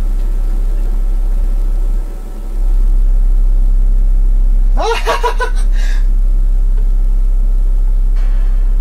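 A 12-inch Diamond Audio subwoofer playing a deep, steady sine-wave bass tone, driven by a fire-damaged, self-oscillating class-D car amplifier that is producing audio again. The tone dips briefly about two seconds in, then comes back louder.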